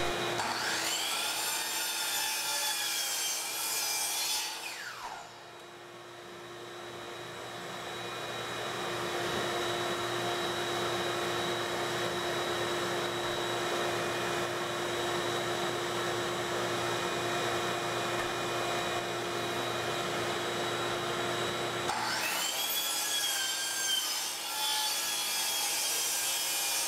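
A 10-inch DeWalt sliding miter saw cutting through a prefinished hardwood stair tread twice, at the start and again from about 22 seconds in, each cut ending as the motor winds down. Between the cuts there is a steady mechanical whir.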